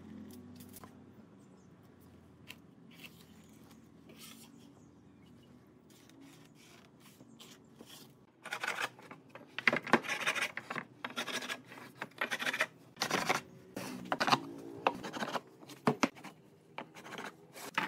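Hand tool scraping across wood in quick, irregular strokes that start about halfway in, after a quieter stretch of faint clicks and taps.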